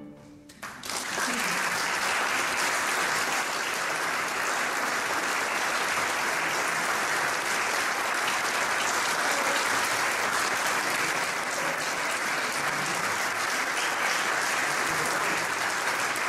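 A moment of quiet, then an audience applauding steadily, the clapping starting about a second in.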